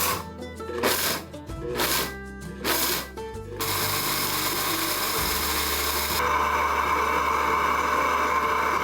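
Background music with a beat for the first few seconds, then a high-powered Blendtec blender motor starts about three and a half seconds in and runs steadily. About six seconds in it steps up to a louder, higher speed.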